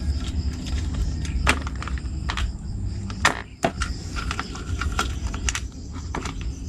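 Sharp metal clinks and knocks of hand tools and bolts while unbolting a scooter's exhaust, a handful of separate strikes over a low steady rumble.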